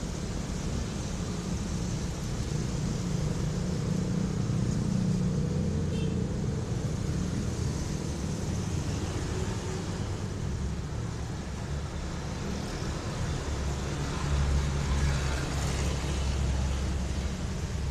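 Steady low rumble of road vehicle noise, swelling for a couple of seconds about fourteen seconds in.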